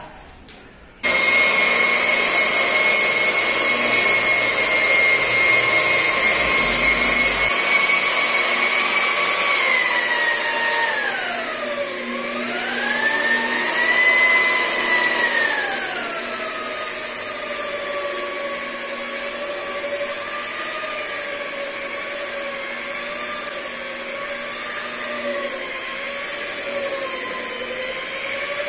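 Electric rotary polisher with a foam pad switching on about a second in and running with a steady high whine while buffing car paint with polishing compound. About twelve seconds in the whine dips sharply in pitch and comes back up, then settles at a lower pitch for the rest.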